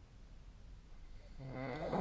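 A sleeping person snoring: a quiet pause, then about a second and a half in a low, buzzing snore begins and grows louder toward the end.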